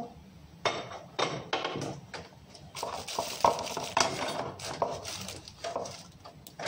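Dishes and utensils being handled on a kitchen counter: an irregular run of knocks, clinks and rustles.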